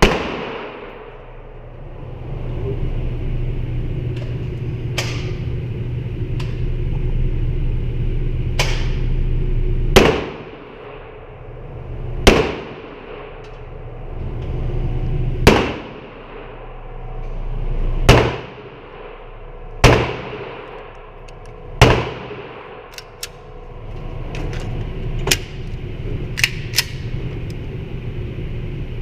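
Gunshots fired one at a time, the loudest about every two to three seconds for some eight rounds, each with a short echo tail, with fainter shots and clicks in between and a cluster near the end. A steady low hum runs underneath.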